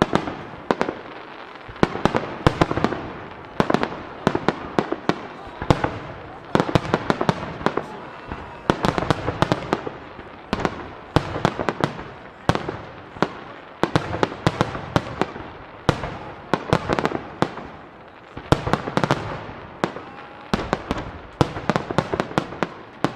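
Starmine fireworks: a rapid-fire barrage of aerial shells bursting, the bangs coming in quick clusters one after another throughout.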